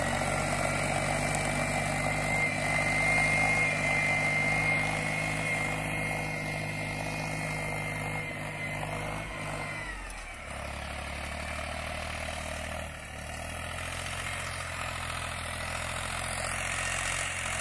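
Tractor engine running steadily under load while pulling a cultivator, with a high whine over the engine note. About ten seconds in, the engine note slides lower and settles into a deeper drone.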